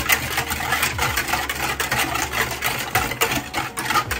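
Electric hand mixer running steadily, beating milk, egg and sugar together in a bowl, with rapid clicking of the beaters against the bowl.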